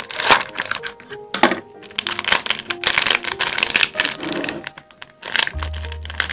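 Background music over a rapid run of sticky clicks and crackles from slime being mixed and worked by hand.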